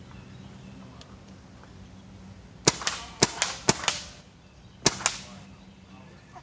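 Bob Long Insight paintball marker with the Reflex spool engine firing on semi-auto. It makes sharp air pops in four quick pairs, starting about two and a half seconds in and ending about five seconds in.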